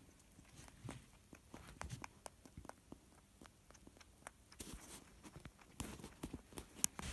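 A rabbit crunching a small dry treat close to the microphone: short, irregular clicks that come thicker and louder in the last couple of seconds.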